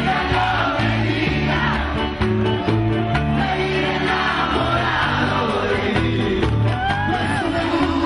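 Live bachata band playing, with bass notes stepping under a sliding melody and singing.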